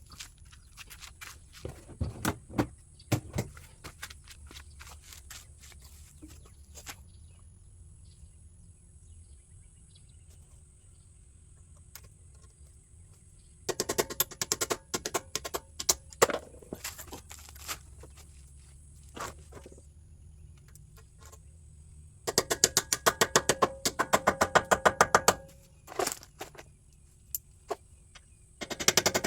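Rapid metallic hammer taps in two bursts of about three seconds each, midway and past two-thirds through, with a ringing tone on each strike and scattered single knocks before them: a new rear axle seal being tapped into the FJ Cruiser's axle housing.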